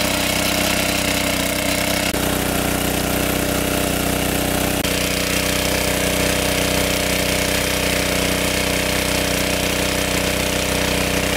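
Small petrol-engine water pump running steadily under load, pumping water out through its discharge hose. Its tone shifts slightly about two seconds in and again about five seconds in.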